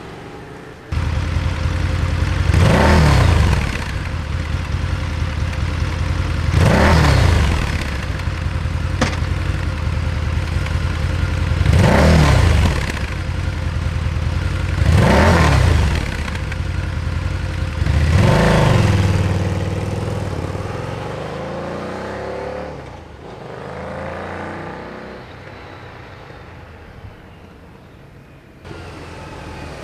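Harley-Davidson Night Rod Special (VRSCDX) 1250 cc V-twin rumbling at idle through its dual mufflers and revved five times, each rev rising in pitch and dropping back to idle. The engine sound then fades away.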